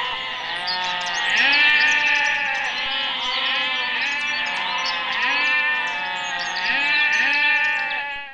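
A goat bleating over and over, long loud calls following one another with hardly a break.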